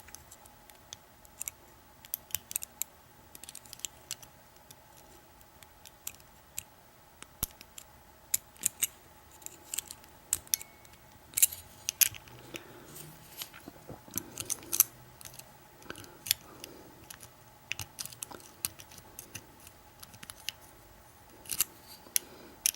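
Steel lock pick ticking and scraping against the pin stack inside the keyway of an American 1100 pin-tumbler padlock, in sparse, irregular small clicks while the pins are probed.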